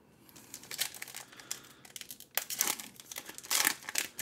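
Foil wrapper of a baseball-card retail pack crinkling as it is torn open by hand, in a run of irregular crackles, loudest a little past halfway and again near the end.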